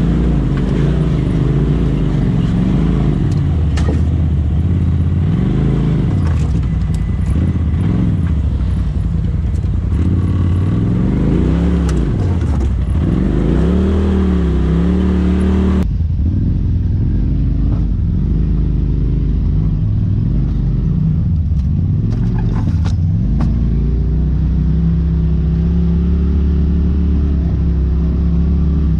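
Polaris RZR side-by-side engine running, heard from the cab, its revs rising and falling again and again as it crawls a rocky trail, with a few knocks from the chassis. About halfway through the sound cuts to another RZR's engine running more steadily.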